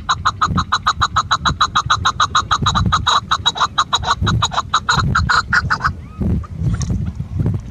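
Female chukar partridge calling: a fast, even run of short notes, about six a second, that stops about six seconds in, over a low rumble.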